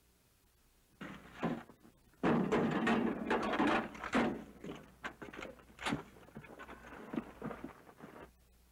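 Several people scrambling to their feet and moving off: footsteps scuffing on dirt and gravel with gear clattering. The noise starts about a second in, is loudest a couple of seconds in, then thins to scattered scuffs and knocks.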